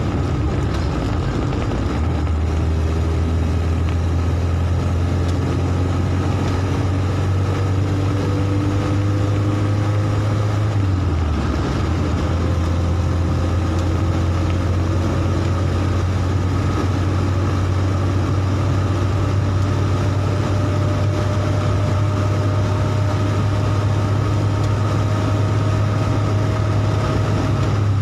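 Engine and tyre noise heard from inside a Mercedes-Benz vehicle driving on a wet road: a steady low drone with a faint whine slowly rising in pitch as it gathers speed, and a brief dip in the drone about eleven seconds in.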